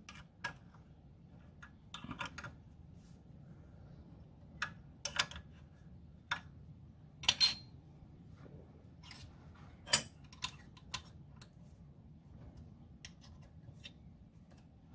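Scattered light metallic clicks and taps of a hex key and small screws being handled and turned while a DRO scale's reader-head bracket is fastened to a lathe saddle. The clicks are irregular, with a few sharper ones about five, seven and ten seconds in.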